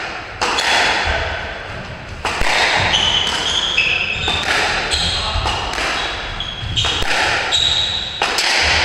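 Squash rally: the ball smacking off rackets and court walls in a string of sharp, irregular hits that ring around the enclosed court, with court shoes squeaking briefly on the wooden floor between them.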